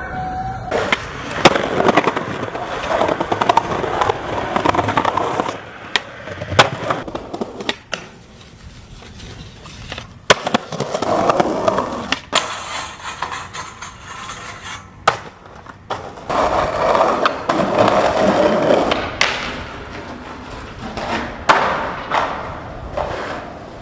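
Skateboards rolling over pavement and concrete, wheels grinding along in long stretches. Sharp clacks from boards popping and landing come many times throughout.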